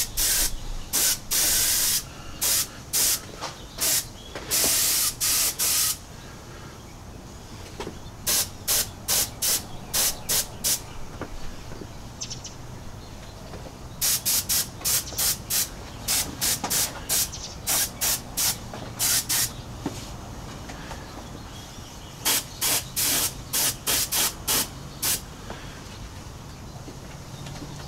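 Airbrush spraying matte black DuraCoat firearm coating in short hissing bursts, about two or three a second, in runs separated by pauses of a few seconds as the trigger is pressed and released.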